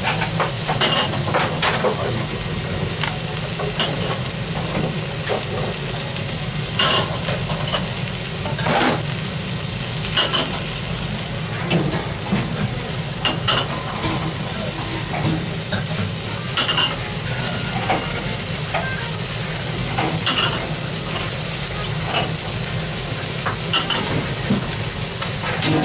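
Breaded wagyu beef cutlet (gyukatsu) searing on a hot black cooking plate: a steady sizzle with frequent small pops and crackles of spitting fat.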